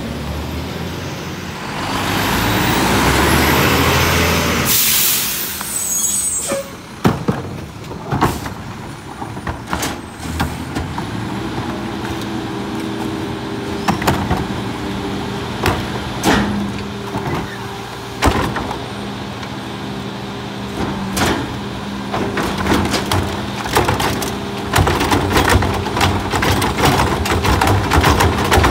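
Heil rear-loader garbage truck at work: a loud burst of air-brake hiss from about two seconds in that cuts off sharply near five seconds, then repeated bangs and knocks of trash and carts going into the hopper. From about twelve seconds the truck's engine and hydraulics run with a steady hum, and near the end a cart is tipped by the lifter with a quick clatter of knocks.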